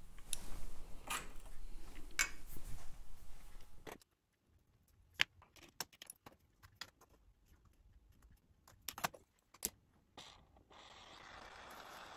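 Small metallic clicks and scrapes of pliers working a copper ring band, then scattered light taps. Near the end a jeweler's torch comes on with a steady hiss.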